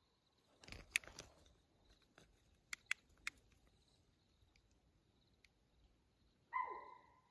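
A mountain lion's short nighttime call near the end: one cry, held briefly and then falling away. Earlier there is a brief rustle about a second in and three sharp clicks close to the microphone about three seconds in.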